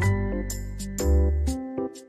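Instrumental background music: a pitched melody over a deep bass with short high ticks on the beat. The bass drops out near the end.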